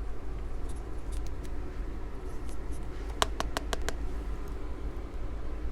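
Light handling sounds of a makeup brush working an eyeshadow palette: a few faint clicks, then a quick run of about five sharp taps a little past three seconds in, over a steady low room hum.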